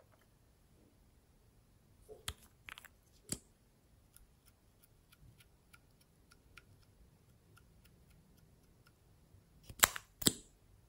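Lip gloss applicator wand dabbing dots onto glossy slime: a run of faint soft ticks, about two a second, after a few louder clicks. Two sharp plastic clicks near the end, the loudest sounds, come from the lip gloss tube being handled.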